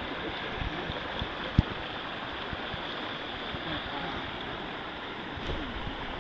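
Steady rush of a fast-flowing, swollen river, with one brief low thump about one and a half seconds in.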